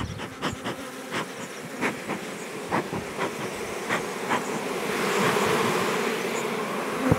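Honeybees humming around an open hive, with scattered clicks and knocks in the first few seconds. From about five seconds in, a hiss swells and fades: a bee smoker puffing smoke over the frames.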